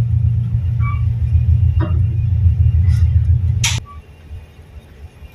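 Tugboat's diesel engines running with a loud, steady low rumble heard from the wheelhouse, then throttled back about four seconds in, where the rumble falls off sharply. A sharp click comes just as it drops.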